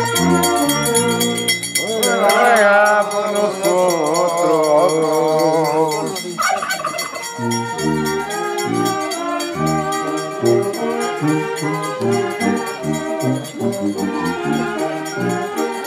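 Brass band music: sustained horn notes over a steady oom-pah bass, with a wavering, trilling melody line between about two and six seconds in.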